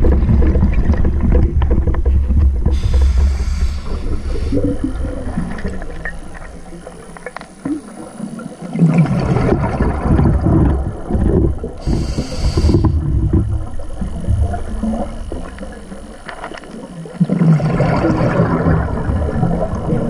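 Scuba diver breathing through a regulator, heard underwater: a hiss on each inhalation, about 3 and 12 seconds in and again at the end, and a gurgling rush of exhaled bubbles after each breath, with a low rumble throughout.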